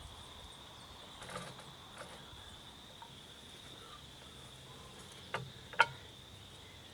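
A few light clicks and knocks of a bungee cord's hooks and a makeshift filler cap being fitted on a small engine, the two loudest close together near the end. A steady high-pitched insect drone, crickets, runs underneath.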